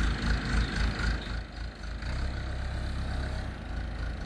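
Backhoe engine running steadily at idle, a low rumble.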